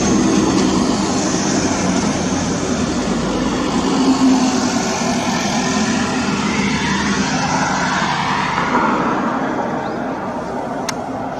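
Steady rumble of vehicle traffic, with a sweep in pitch around the middle as something passes, easing off slightly near the end.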